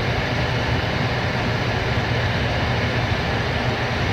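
Amana gas furnace's blower motor running loudly and steadily: a low hum under a rushing of air. The furnace makes no heat, its control board flashing a gas-valve fault code.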